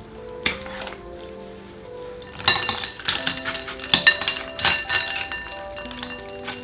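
Stainless mesh strainer and chopsticks clinking against a glass bowl of ice water as cooked ramen noodles are swished to cool and rinse them, with a cluster of sharp clinks in the middle. Background music with sustained notes plays throughout.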